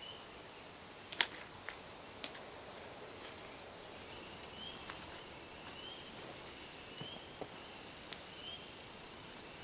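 A faint, high, short rising peep repeating about once a second from roughly four seconds in, over quiet outdoor ambience. Two sharp clicks about one and two seconds in are the loudest sounds.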